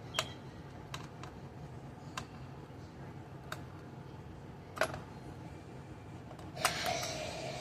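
Scattered small sharp clicks and taps of a screwdriver working on a plastic toy's battery-cover screw, then a denser scraping rustle of handling near the end.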